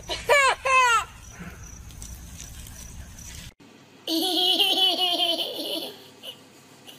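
Small children laughing. A toddler gives three loud laughs that fall in pitch in the first second, then after a gap a little girl's quick run of giggles lasts about two seconds.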